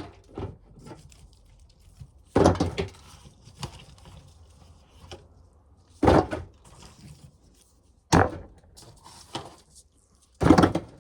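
Ears of corn being picked out and dropped into a pail: four loud clatters, a few seconds apart, with lighter knocks and rustling between them.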